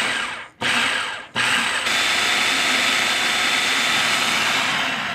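Electric food processor motor with its blade chopping mushrooms, shallot and garlic: two short pulses, then one long continuous run with a steady whine that winds down near the end as the mix turns to a fine, grainy paste.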